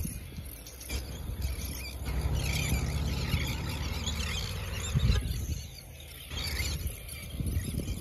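Wind buffeting the microphone in a steady low rumble, with a faint high twittering from a flock of shorebirds that swells about two seconds in and fades near five seconds.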